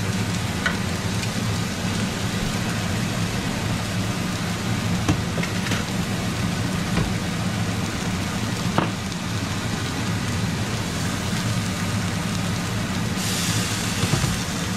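Beef pot roast sizzling steadily as it browns in olive oil in a cast-iron skillet. About thirteen seconds in the sizzle grows louder and brighter as the meat is turned with a fork.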